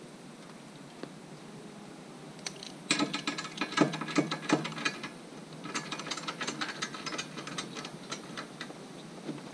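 Cargo ratchet strap being cranked tight, its ratchet clicking in quick runs: one spell starting about two and a half seconds in, a second from about six seconds in.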